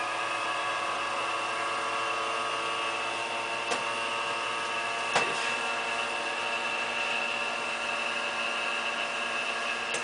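Steady machine hum made of several even tones under a high whine, with two sharp clicks about four and five seconds in.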